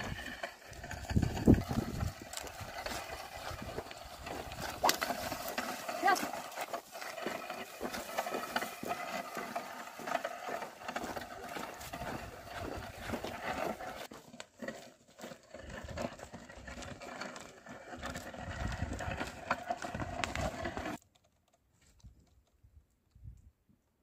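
Pair of oxen drawing a wooden plough through dry, dusty soil: hoof steps, clicks and scraping. It stops abruptly about 21 seconds in, leaving only a few faint clicks.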